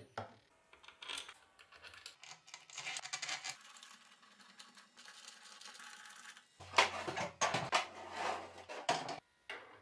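Metal handling at a workbench: scattered clicks and scrapes of bolts and a socket wrench on the aluminium reduction gearbox of a brushcutter engine. About two-thirds of the way in comes a louder, denser clatter of metal knocks.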